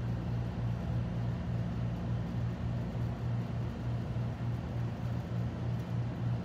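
Room tone: a steady low hum that swells and fades gently a few times a second, over a faint hiss.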